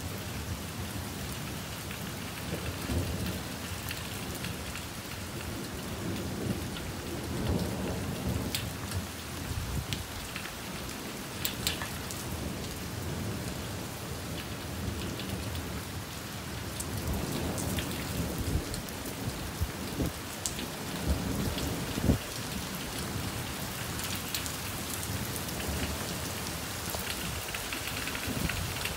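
Gusty storm wind rushing through tree foliage and buffeting the microphone, with low rumbling surges that swell and fade every few seconds. A sharp knock comes about 22 seconds in.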